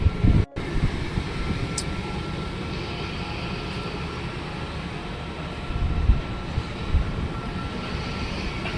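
Steady low rumble that swells and fades irregularly, like wind buffeting the microphone, with a faint high steady whine underneath. There is a brief dropout about half a second in.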